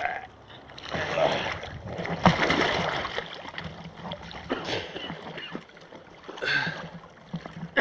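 Shallow river water splashing and sloshing in several bursts as a person in a wetsuit crawls through it on hands and knees.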